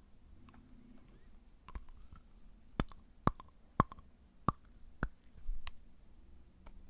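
Fingernails being bitten and chewed close up: a string of sharp, irregular nail clicks and snaps, the loudest about a second apart in the middle of the stretch.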